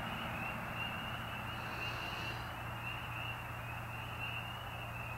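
Frogs calling in a steady chorus of short, high, rising peeps, repeating a few times a second, over a low steady hum.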